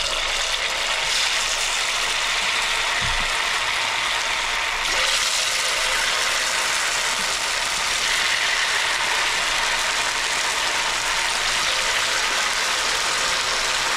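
Batter-coated potatoes deep-frying in hot cooking oil: a steady, loud sizzle that turns brighter and hissier about five seconds in.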